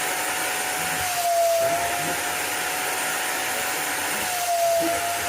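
VEVOR wet vacuum running with its small nozzle, sucking water out of fabric couch upholstery: a steady motor whine over rushing air. The whine dips briefly in pitch and gets a little louder twice.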